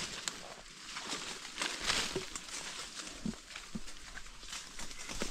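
Footsteps crunching and rustling through dry leaf litter and twigs, with irregular light snaps and a louder rustle about two seconds in.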